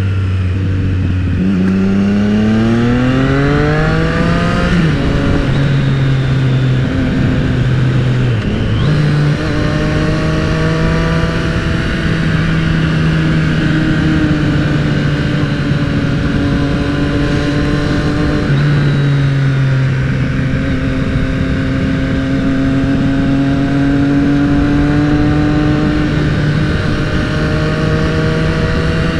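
Triumph motorcycle engine heard from the rider's helmet. The revs drop at first, then climb under acceleration with a gear change at about five seconds and another near nine, and after that it cruises at a steady, slightly varying pitch. Steady wind rush runs underneath.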